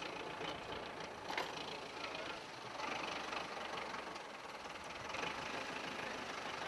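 Tractor engine running, a steady rough engine noise under outdoor background noise.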